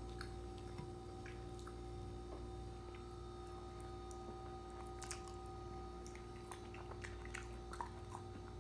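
Faint steady electrical hum, a low drone with a few steady higher tones, with scattered light clicks and taps from the handheld phone.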